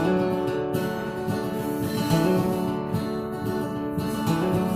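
Acoustic guitar intro to a folk song, fingerpicked with a steady rhythm.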